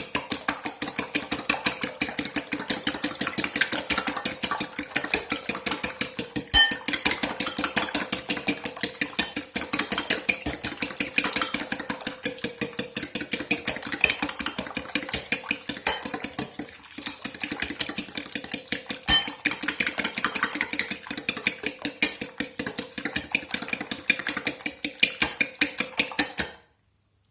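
Four eggs being beaten in a bowl, the utensil clicking rapidly and evenly against the bowl at several strokes a second, stopping abruptly near the end.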